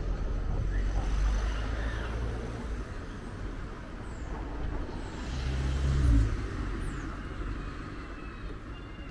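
Low engine rumble of a motor vehicle going by on the road, strong at the start, fading, then swelling again to its loudest about six seconds in before dying away.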